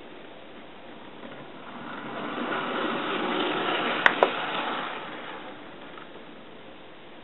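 Bachmann N class model steam locomotive, converted to DCC, running slowly on sectional track: a soft whirring rattle of its motor and wheels that swells and then fades away. Two sharp clicks come close together about four seconds in.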